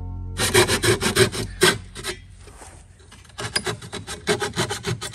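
Rapid rasping, rubbing strokes, about five a second, from hand work on the brass fittings of a water-pump and pressure-tank plumbing board. There are two runs of strokes with a short, quieter lull between them.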